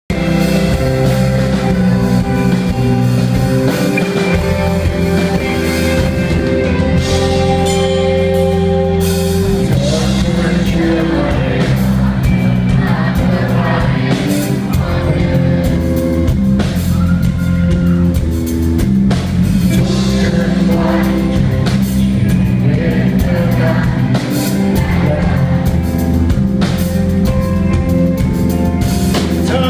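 Rock band playing live, a singer's voice over a band with drum kit.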